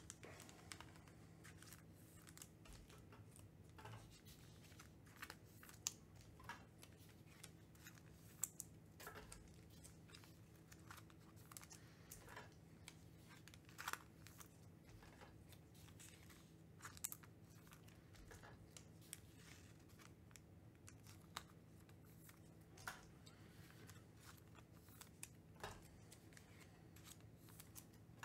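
Faint, irregular clicks and rustles of trading cards being handled and shuffled through, over a low steady hum.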